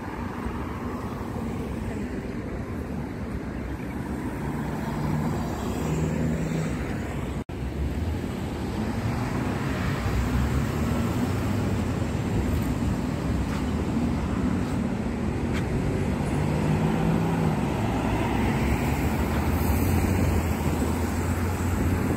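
City road traffic: car engines and tyres making a steady low rumble, with a few vehicles passing by. The sound cuts out for an instant about seven seconds in.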